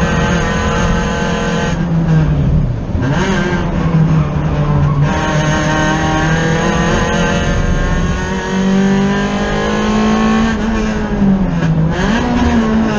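Race car engine heard from inside the stripped cabin, running hard on track. The pitch drops off about two seconds in, climbs in one long rise from about five seconds to ten, then dips briefly and picks up again near the end.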